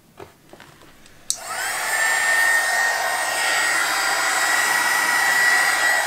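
Hot-air heat gun switched on with a click about a second in, its fan spinning up quickly to a steady blowing rush with a high whine.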